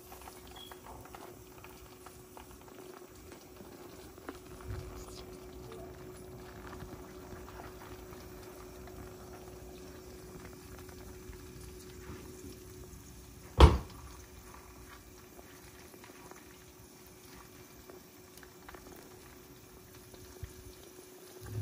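Hot oil sizzling and crackling steadily under a thin plăcintă of stretched dough frying in a pan. A single sharp knock stands out about fourteen seconds in.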